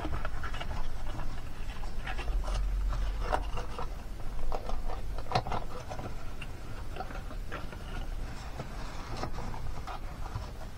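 Stiff cardstock being handled and slid into a paper box: scattered light scrapes, rustles and taps of paper on paper, over a low steady hum.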